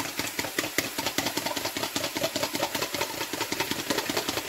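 Raw eggs being beaten with a fork in a plastic measuring jug: a fast, even run of clicks as the fork strikes the sides of the jug.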